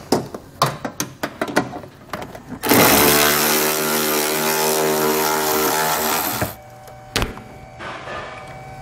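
Cordless power ratchet running steadily for about four seconds, backing out a 10 mm bolt behind the wheel-well liner. Before it come a few light clicks and taps of hands at the bolt, and after it a single sharp click.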